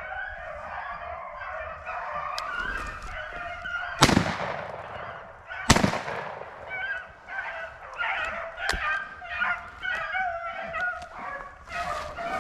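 A pack of rabbit-hunting dogs baying steadily on a running rabbit's trail, with two loud shotgun shots about four and six seconds in.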